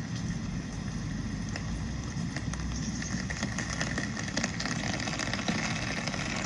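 Steady rain falling, with many small drop ticks, over a low rumble.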